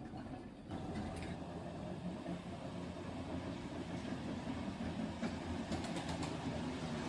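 Small electric motor of an H0m metre-gauge model tram humming steadily as the tram runs along the track, starting under a second in, with a few light clicks of its wheels over the track, about a second in and again between five and six seconds in.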